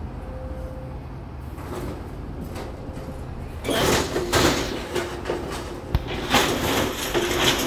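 Excavator tearing into a steel-framed building under demolition: a low steady rumble, then from about halfway loud scraping and grinding with short metal squeals and crunching debris.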